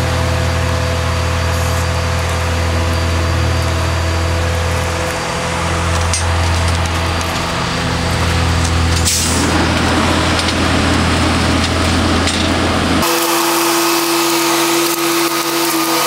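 Concrete pump running steadily, its engine giving a loud low drone with steady hum tones. About nine seconds in, a burst of rushing noise joins as concrete is pushed through the hose. About three seconds before the end the low drone cuts out suddenly, leaving a higher hum.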